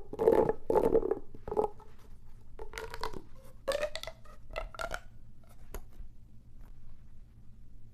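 Pop tube fidget toys, corrugated plastic tubes, being stretched and squashed, giving a run of raspy, pitched popping bursts. Some bursts rise in pitch, and the sound stops about six seconds in.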